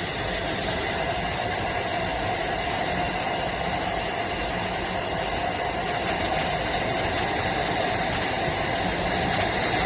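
A motor running steadily, an even drone with a constant hum that does not change.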